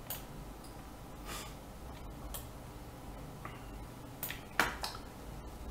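Computer mouse and keyboard clicks: a handful of short, sharp taps spread out, the loudest a little over four and a half seconds in, over a low steady hum.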